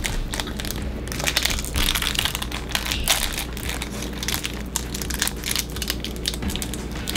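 Crinkly plastic toy wrapper being crumpled and picked open by hand: irregular crinkling and crackling.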